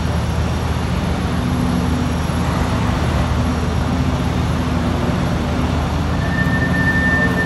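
Heavy vehicle's engine running steadily with a low, even hum. About six seconds in, a steady high tone starts and is held for about two seconds.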